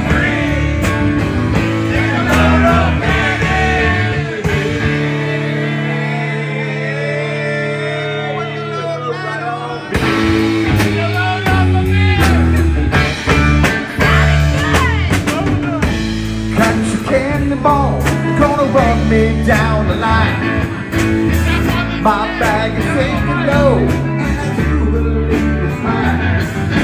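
Live rock band playing: drum kit, bass and electric guitar, with voices singing along. About five seconds in the drums drop out under a held chord, and the full band comes crashing back in about ten seconds in.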